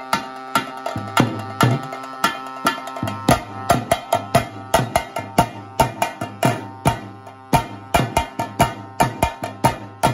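A double-headed folk drum struck fast with a stick and the hand, in a busy rhythm that gets denser towards the end, over a steady drone from a reed pipe with a brass bell.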